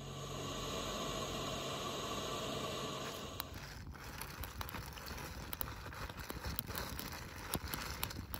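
A steady rushing noise for the first three seconds or so, then a small fire of split wooden kindling crackling, with scattered sharp pops.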